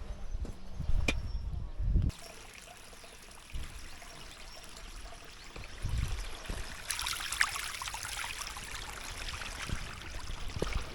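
Running water trickling steadily, with a few low bumps in the first two seconds.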